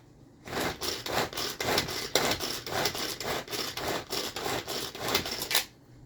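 Tupperware Power Chef pull-cord chopper pulled over and over, the cord whirring out and the blades spinning through chopped onion, about three pulls a second. The pulling stops shortly before the end.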